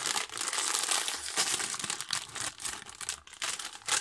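A foil crisp packet of Walkers Wotsits Crunchy Extra Flamin Hot crinkling and rustling as it is handled and pulled open, a dense run of crackles with no pause.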